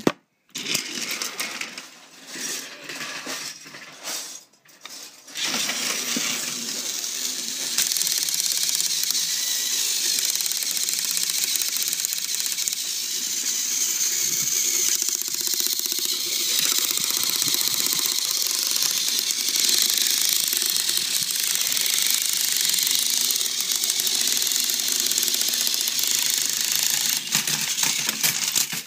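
Two battery-powered toy train engines pushing nose to nose on plastic track, their small electric motors and plastic gears whirring and rattling steadily. Scattered clicks and knocks come first, and the steady whir sets in about five seconds in.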